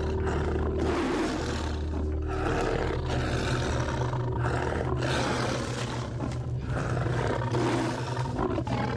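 Tiger roaring, a series of rough roars coming about once a second, over a low steady hum.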